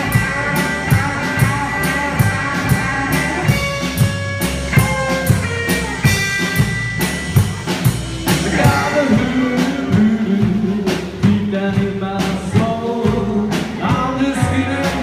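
Live rockabilly band playing: Gretsch hollow-body electric guitar, upright double bass and drum kit keeping a steady beat. The bass line grows stronger about nine seconds in.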